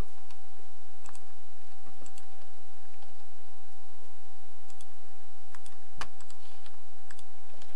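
Computer mouse and keyboard clicks, sparse and irregular, with one sharper click about six seconds in, over a faint steady electrical tone.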